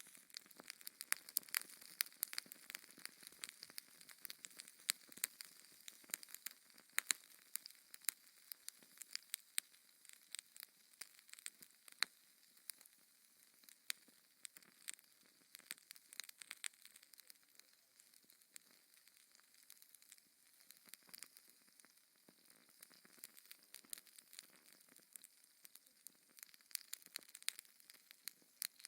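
Wood fire crackling in a fireplace: irregular sharp pops and snaps over a soft hiss, busier in the first half and sparser later.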